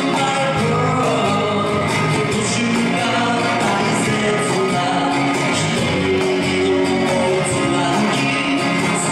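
Live acoustic pop song: acoustic guitar and bass guitar playing under a sung melody.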